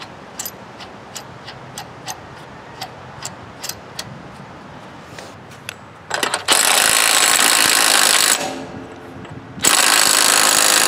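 Light metal clicks as the flywheel nut is turned down by hand. Then a Bauer 20V cordless impact wrench hammers the flywheel nut of a Briggs & Stratton twin-cylinder engine tight, in two bursts of about two seconds each with a short pause between.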